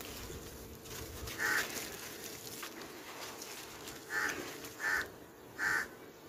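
A bird calls loudly four times: once about a second and a half in, then three times in quick succession near the end. Under it, wet sand-cement chunks are crumbled by hand into a tub of water, with soft splashing and gritty trickling.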